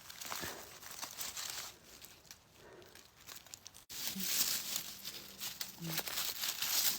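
Dry grass and undergrowth rustling and crackling irregularly as someone moves through it foraging for mushrooms. It becomes louder and denser from about four seconds in.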